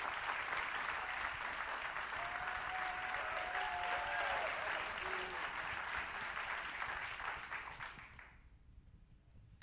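Audience applauding, with a voice calling out over the clapping, dying away about eight seconds in.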